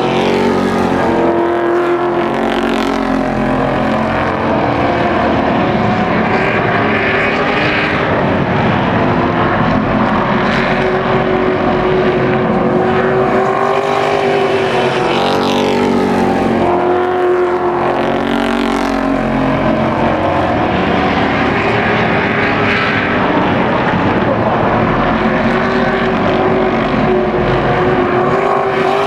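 Race trucks' engines running hard as a field laps an oval. The engine notes swell and fade every few seconds as the trucks come past, over a continuous loud drone.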